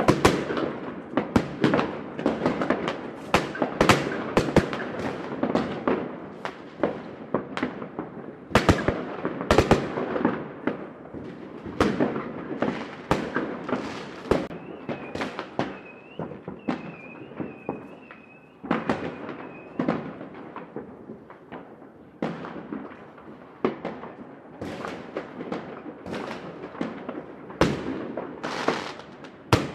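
Fireworks going off in a city: a dense, irregular run of sharp bangs and crackles with a reverberant rumble between them. A faint wavering high tone sounds for a few seconds around the middle.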